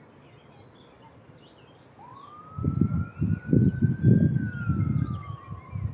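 A single long siren wail rises about two seconds in, then slowly falls in pitch, over loud irregular low rumbling. Birds chirp faintly.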